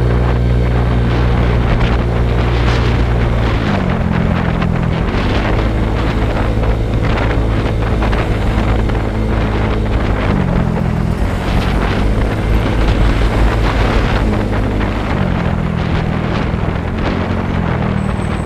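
Motorcycle on the move, its engine running under heavy wind noise on the microphone. The engine note shifts about four seconds in and several times after.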